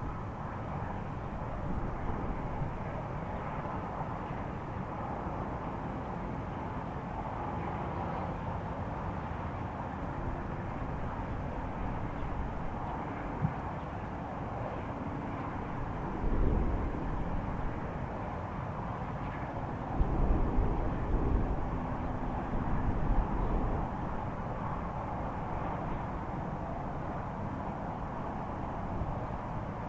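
A steady low rumbling drone from the sky, the kind reported as a mysterious 'strange sky sound'. Louder low rumbles surge about halfway through and again a few seconds later.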